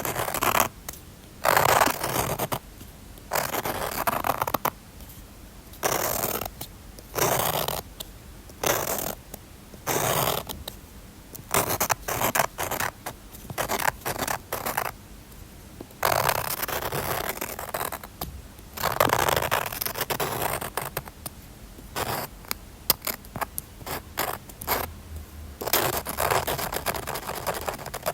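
A drawing tool scratching across paper in a run of separate strokes, some short and some longer, with brief pauses between them.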